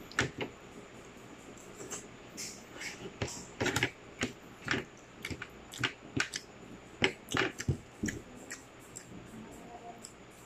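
Crunching chewing of tutong, the hard burnt rice crust scraped from the bottom of the pot. It comes as irregular sharp cracks, some in quick clusters.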